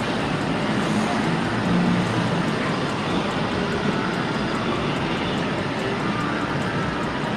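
Steady rumble and hiss of road and engine noise inside a moving vehicle, holding at an even level.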